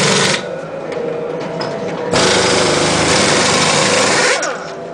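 Pneumatic wheel guns (air impact wrenches) running in two bursts during a race-car pit stop: the first cuts off about half a second in, the second runs from about two seconds in until near the end.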